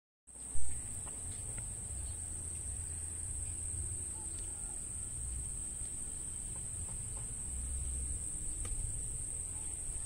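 Insects trilling in one steady, unbroken high-pitched drone over a low uneven rumble, with a brief thump about half a second in.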